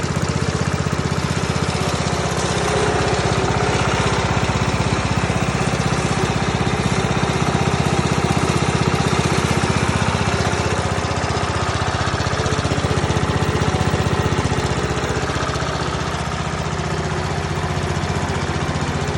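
Clipper C-188 walk-behind concrete saw's small gasoline engine running steadily, with a fast, even firing rhythm; the level eases slightly near the end and comes back up.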